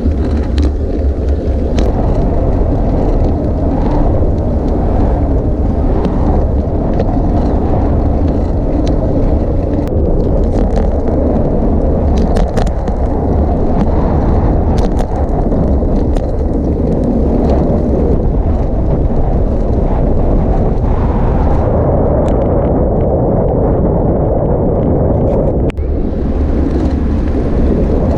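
Wind buffeting the microphone of a camera on a moving road bike, a loud steady rush with road and tyre noise under it and scattered small clicks.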